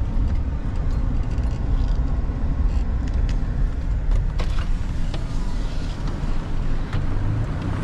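A car driving, heard from inside: a steady low rumble of engine and road noise.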